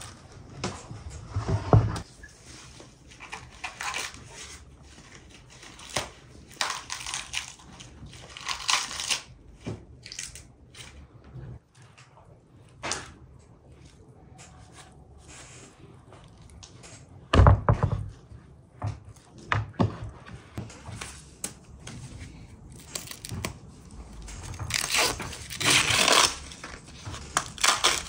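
Fresh ears of corn being husked by hand: the green husks tear and rustle in short strokes, with the densest tearing near the end. Two dull knocks come about two seconds in and again past the middle.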